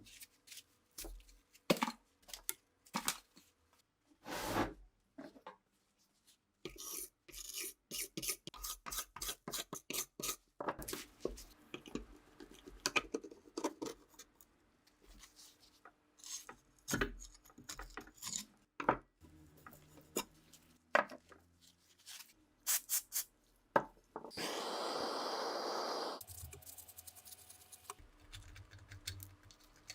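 Hand work on rifle parts at a workbench: scattered clicks and knocks, a run of quick scraping or filing strokes, then rubbing. About 24 seconds in comes a steady two-second hiss.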